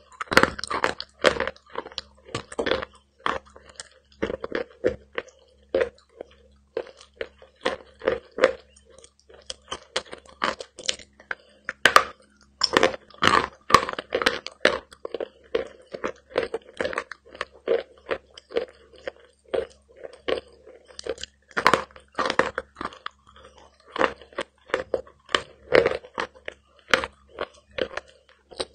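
Close-miked biting and chewing of eating chalk, a mix of dry and wetted pieces: crisp crunches, then chewing strokes in a steady rhythm.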